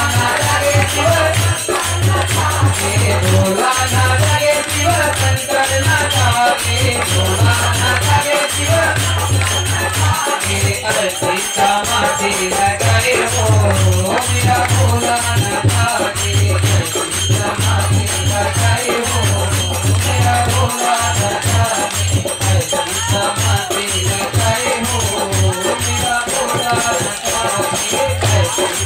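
Hindu devotional bhajan played loud over a sound system: a voice singing the melody over shaker and tambourine-like rattles, with a crowd clapping along.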